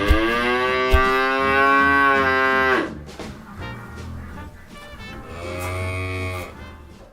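A cow mooing: one long, loud moo lasting almost three seconds, then a quieter, shorter moo near the end, over light background music.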